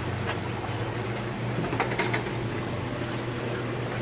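Steady low hum of aquarium pumps and filtration, with a few light clicks and knocks from the plastic tub holding the stingray being handled, one near the start and a short cluster about two seconds in.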